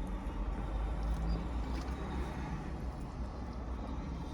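Steady low rumble of a parked vehicle's idling engine heard from inside the cabin, with a few faint clicks.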